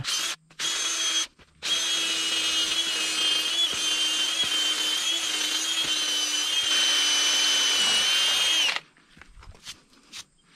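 Cordless drill boring a pilot hole into a stone pad with a masonry bit, for a Tapcon screw. It gives two short spurts, then runs steadily with a high whine for about seven seconds and stops suddenly.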